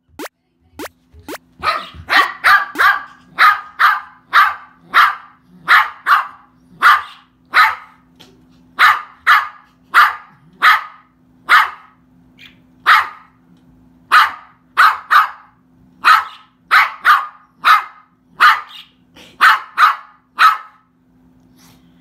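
Small white spitz-type dog barking at a budgerigar on the floor: a long run of sharp barks, one or two a second, stopping near the end.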